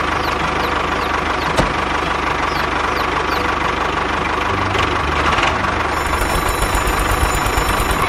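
Tractor engine running steadily with a low, even chug, somewhat louder for a moment in the middle.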